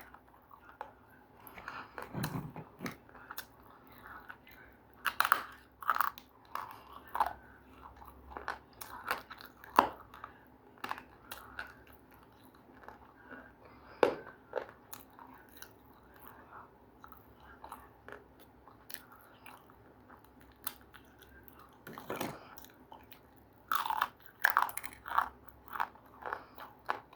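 Close-up biting and chewing of something hard and crunchy: irregular sharp crunches, in clusters with quieter chewing between, and a sparser pause in the middle.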